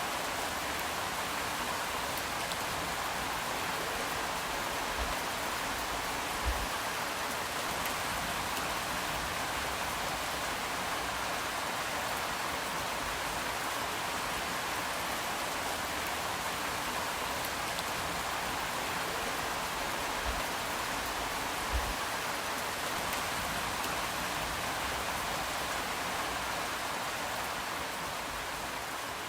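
Steady rain falling, an even hiss of many drops, with four soft low thumps along the way. It begins to fade near the end.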